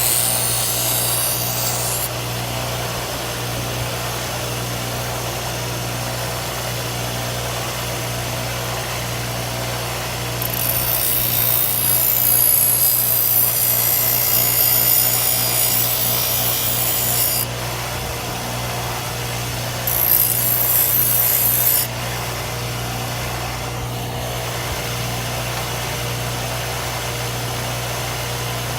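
An electric power tool motor running steadily, with three stretches of harsh, high grinding as the old sickle's metal blade is held against it. The longest lasts about seven seconds, starting about ten seconds in, and a short one comes about twenty seconds in.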